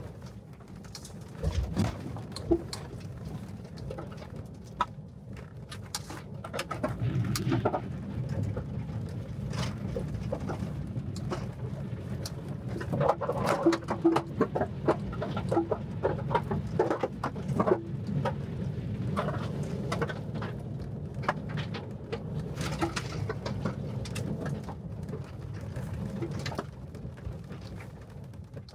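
Cab noise of the Ford F-150 Lightning Switchgear, an electric off-road truck, driven hard on dirt: a steady low rumble of tyres and suspension with frequent sharp clicks and knocks of dirt striking the body. It gets louder through the middle stretch.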